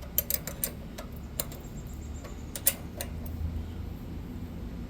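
Light metallic clicks and taps of wrenches on the rocker-arm adjuster and lock nut of a HISUN 6.5 hp engine during a valve-clearance adjustment, a few scattered ticks over a low steady hum.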